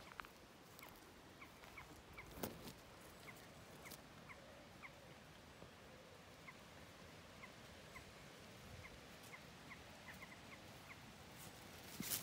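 Near silence outdoors, with faint, short high chirps at an uneven pace of one or two a second. There is one soft knock about two and a half seconds in and a brief rustle near the end.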